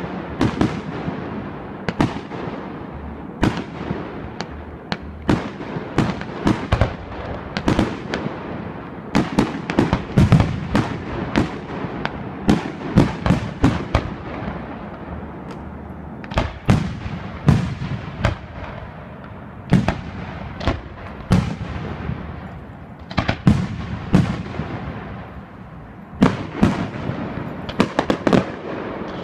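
Aerial fireworks shells bursting in a professional display: a long run of sharp bangs at irregular intervals, often several in quick succession, each trailing off in an echo.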